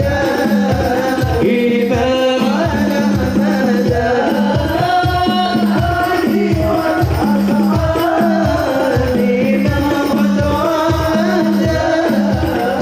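Sholawat song: a sung melody over a steady, fast beat of hand drums.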